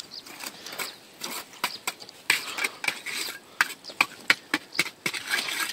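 Something being washed by hand: an irregular clatter of sharp knocks and clinks, a few a second, with splashy noise between them.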